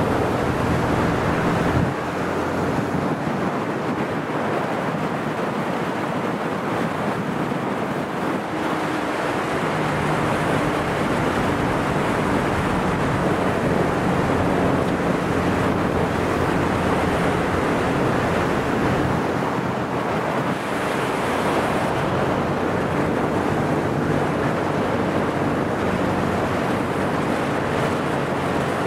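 Chase boat running at speed across a lake: a steady rush of water and wind buffeting the microphone, with a low boat-engine hum that comes and goes.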